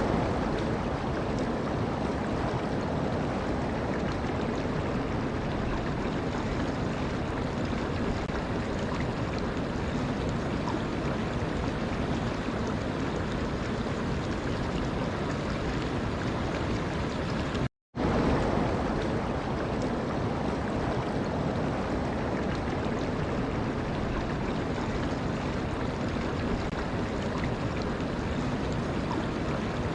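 Continuous rushing water, a steady even noise without distinct splashes or tones. It cuts out completely for a split second about 18 seconds in, then resumes unchanged.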